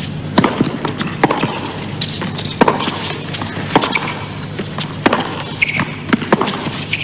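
Tennis ball struck by rackets and bouncing on the court during a rally: a serve and then a string of sharp pops, about one a second.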